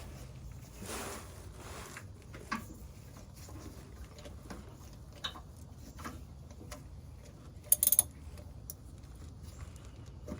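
Scattered clicks and clinks of hand tools being handled, a socket wrench with a long extension, with a quick rattle of sharp metallic clicks about eight seconds in.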